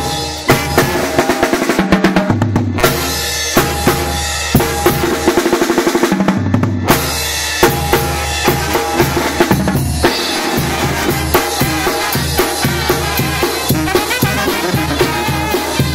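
Mexican banda (brass band) playing live: trumpets, clarinets, trombone and baritone horns over a low bass line, with snare drum, crash cymbals and bass drum beating out a quick, steady rhythm.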